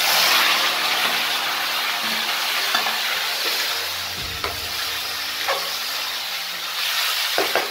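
Raw mango pieces sizzling in hot oil in an aluminium kadhai. The sizzle starts sharply as they go into the oil, then carries on steadily while a metal spoon stirs them, clinking against the pan a few times.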